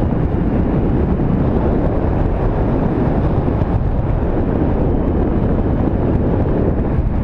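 Airflow buffeting the microphone in flight under a paraglider: a loud, steady wind rush.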